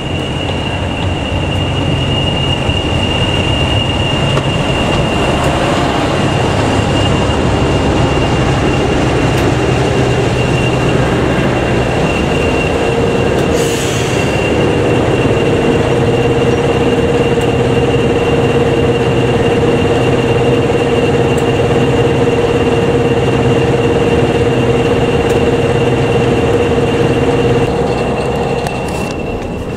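English Electric Class 40 diesel locomotive idling close by: the steady run of its 16-cylinder engine with the constant high turbocharger whistle the class is known for. A second, lower steady tone joins about halfway through, and there is a brief hiss of air shortly after.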